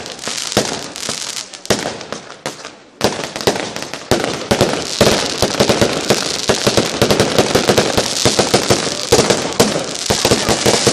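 Fireworks going off: a few separate bangs, then, about three seconds in, a dense, rapid crackle of many small bangs that keeps going.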